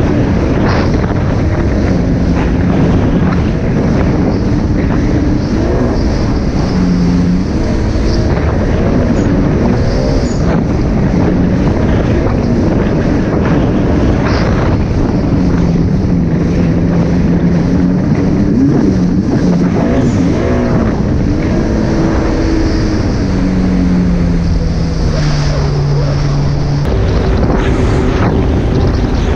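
A 2019 Yamaha GP1800R personal watercraft's supercharged four-cylinder engine running under way at cruising speed. Its pitch rises and falls with the throttle and eases down about three-quarters through. Wind buffets the microphone and water rushes past the hull.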